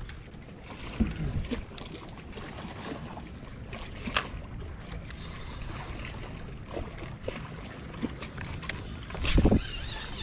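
Scattered clicks and knocks of fishing gear being handled on a boat deck over a steady low rumble of wind and water on the microphone, with a heavier thump and rumble about nine seconds in.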